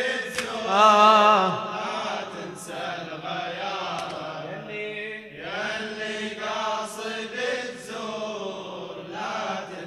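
Congregation of mourners chanting a Shia lamentation (latmiya) refrain together in unison, many unaccompanied voices answering the reciter.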